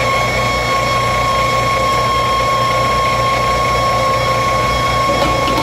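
A machine running steadily: a constant low hum under a steady, high-pitched whine.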